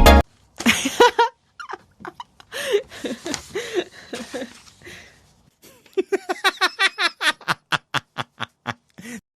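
A person laughing in short bursts, then a quick run of laughs from about six seconds in that slows near the end.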